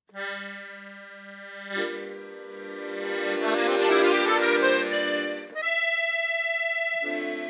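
Accordion playing sustained chords as a song's instrumental intro. The chords change about two seconds in, swell louder toward the middle, and change twice more near the end.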